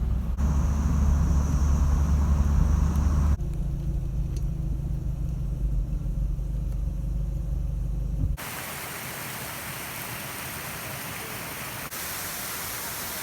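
Peugeot 306 XSi driving, its engine and road noise a steady low rumble heard inside the cabin, in short cut-together stretches. After about eight seconds it cuts abruptly to a steady, even rushing noise.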